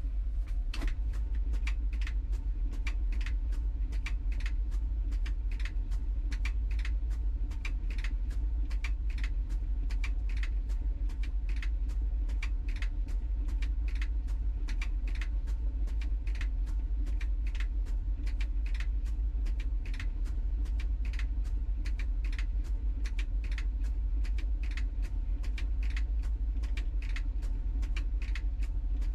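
LG TROMM WashTower tumble dryer running, its drum turning the laundry with a steady low hum and a continuous run of light clicks as the load tumbles, heard from inside the drum.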